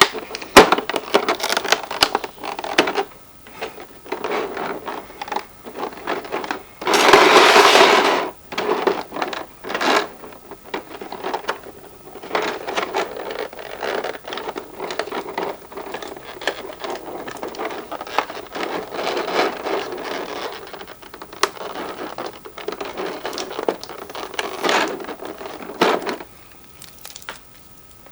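Unboxing handling sounds from a plastic action figure and its packaging: irregular rustling, scraping and sharp clicks, with one louder rasp lasting about a second, roughly seven seconds in.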